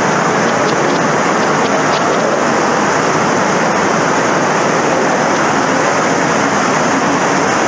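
Floodwater rushing down a street in heavy rain: a loud, steady, even rushing of water and rain with no breaks.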